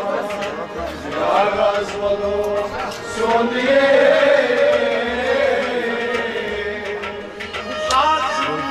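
Live devotional singing: a male voice sings a melody with a long held note about halfway through, accompanied by a harmonium and a hand drum beating a steady rhythm about once a second.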